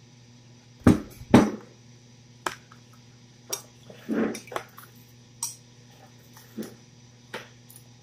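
Scattered clinks and knocks of a metal spoon against plates and a bowl, the two loudest close together about a second in. A low steady hum runs underneath.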